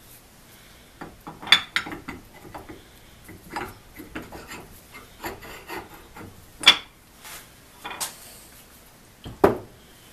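Hand filing: irregular rasping strokes of a file, with a few sharp knocks in between.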